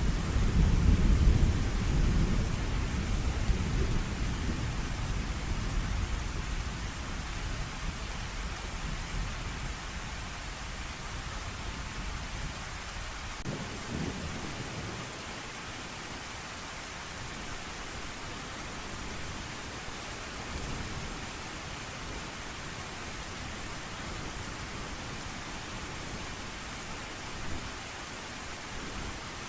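Rolling thunder over steady rain: a loud low rumble at the start dies away over several seconds, a brief low rumble comes about halfway, then only an even hiss of rain remains.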